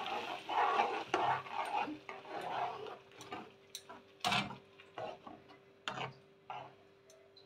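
Steel spoon scraping spinach purée out of an aluminium vessel, then stirring it into thick gravy in a pan, with irregular clinks and knocks of metal on metal.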